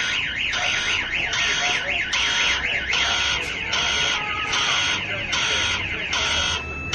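Aftermarket car alarm siren sounding. It cycles through its tones: a fast up-and-down warble for about the first three seconds, then a rapid on-off pulsing tone.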